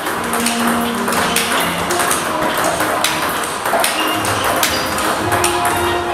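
Table tennis balls clicking in quick, irregular succession as a player returns balls fed by a table tennis robot: paddle hits and bounces on the table, with background music underneath.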